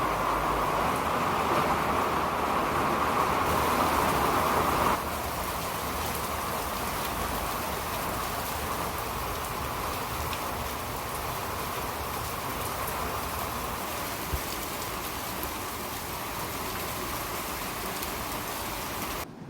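Steady rain falling, an even hiss without a beat; it drops in level about five seconds in and continues evenly.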